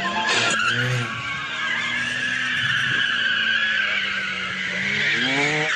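Car tyres squealing in one long, unbroken skid as the car drifts round a track bend, with the engine running underneath and revving up near the end.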